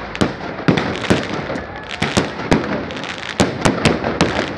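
Fireworks display going off overhead: a rapid, irregular series of about a dozen sharp bangs from bursting aerial shells, with constant crackling noise between them.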